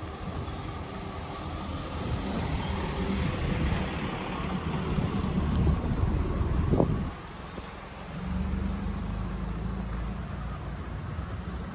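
Steady low rumble of a motor vehicle, with wind on the microphone. It swells to a peak about seven seconds in, falls away for about a second, then returns.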